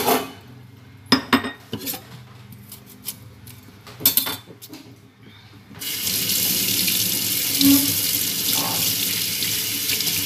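A few sharp knocks and clatters of kitchen things being handled, then about six seconds in a kitchen tap is turned on and water runs steadily into the sink.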